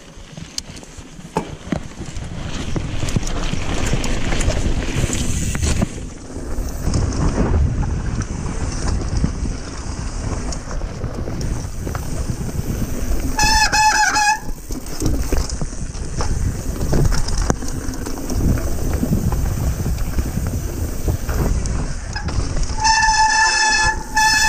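Mountain bike ride noise, wind and trail rattle, broken twice by the brakes squealing loudly: a shrill squeal of about a second halfway through and a longer one near the end. The squeal comes from brakes that are not working well.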